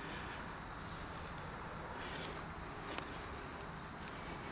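Faint steady insect chorus in the background, with a few faint ticks.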